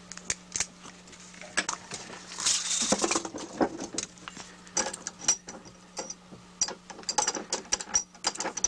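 Split bamboo cane strands clicking and tapping against one another and the workbench as they are handled and measured, in irregular light clicks with a brief scraping rub about two and a half seconds in.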